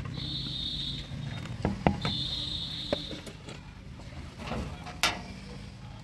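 Knocks and clicks of a plastic jerrycan being handled and a tractor's tank filler cap being unscrewed, the loudest knock about five seconds in. A low steady hum runs underneath, and two high steady tones, each about a second long, sound near the start.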